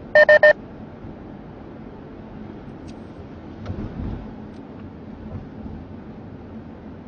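Three quick, loud electronic beeps from a device in the car, then the steady cabin noise of the car driving, with a low bump about four seconds in.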